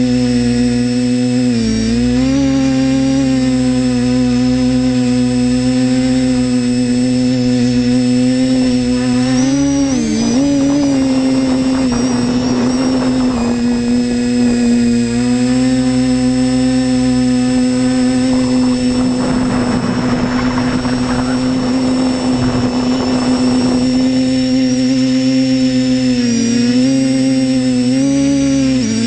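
Electric motors and propellers of a multirotor drone whining steadily in flight, heard through its onboard camera. The pitch dips briefly with throttle changes about two seconds in, around ten seconds, and twice near the end. A rushing noise joins in for a couple of seconds a little before the middle and again for about five seconds past it.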